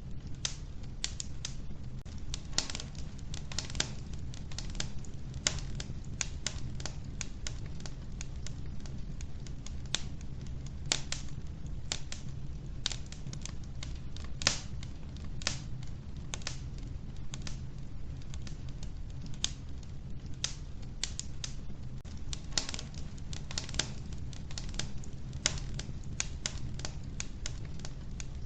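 Wood fire burning in a wood-burning stove: logs crackling with irregular sharp pops, several a second, over a steady low rumble of the flames.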